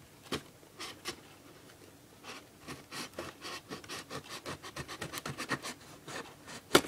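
Fingernails scratching and picking at packing tape on a cardboard box, trying to lift it: an irregular run of quick scrapes and clicks, with one sharper click near the end.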